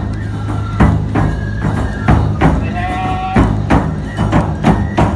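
Nebuta bayashi festival music played live: large taiko drums struck in a steady driving beat, with bamboo fue flutes playing a high melody over them.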